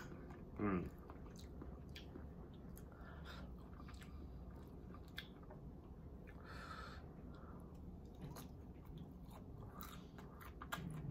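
Close-miked chewing and biting of food, with many small wet mouth clicks and smacks. A short falling hum comes about a second in.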